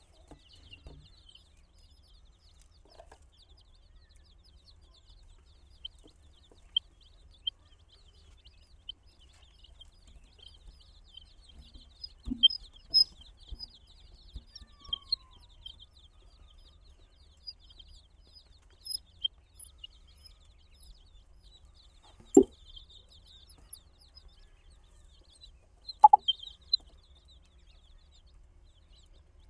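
Many baby chicks peeping without a break, a dense high-pitched chorus of short cheeps. A handful of louder short sounds stand out, the loudest about three-quarters of the way in and again near the end.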